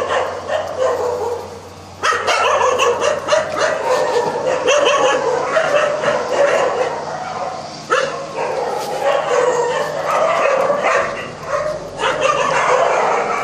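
Several dogs barking and yipping over one another almost without pause, with a short lull just before about two seconds in.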